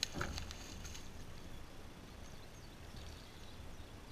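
A small splash with a few sharp clicks right at the start, a fishing jig dropping into pond water, then a faint, steady open-air background with a low hum and a few tiny high chirps.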